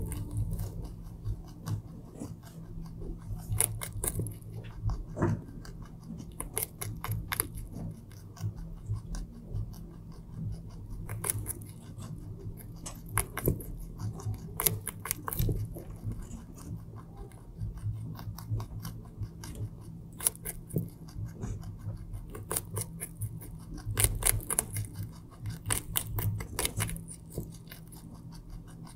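A rabbit gnawing and chewing raw carrot close to the microphone: irregular crisp crunches, often several a second, over a faint steady low hum.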